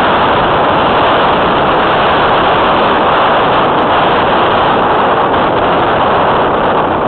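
Steady, loud rush of air buffeting the microphone of a camera mounted on a radio-controlled model plane, with no clear motor tone, as the plane comes in low over the runway to land.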